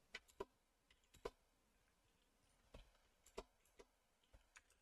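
Faint, irregular clicks of a computer keyboard and mouse during text editing, about nine in all, with pauses of up to a second and a half between them.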